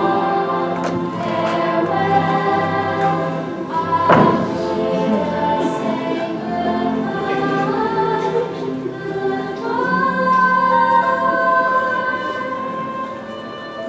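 A choir singing long held notes without clear words, with a single thump about four seconds in.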